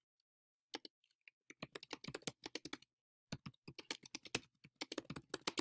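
Typing on a computer keyboard: rapid runs of keystroke clicks starting about a second in, with a short pause around the middle.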